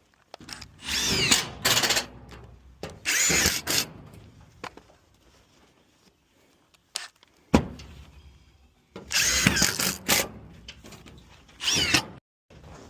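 Cordless power drill driving screws in several short runs of about a second each, the motor's whine rising and falling as it speeds up and slows. A single sharp knock comes about midway.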